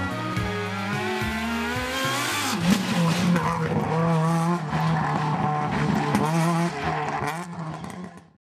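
Rally car driving hard on a gravel stage, its engine note climbing as it accelerates and then rising and falling with the revs as it passes, with some tyre and gravel noise. The sound cuts off suddenly near the end.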